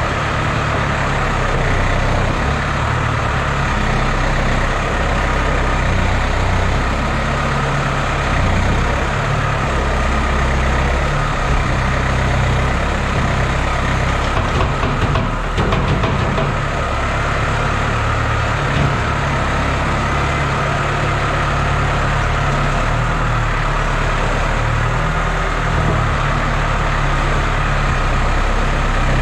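Tractor diesel engine running while the front loader digs into and lifts a load of manure, its engine note shifting up and down with the work. A brief clatter of knocks comes about halfway through.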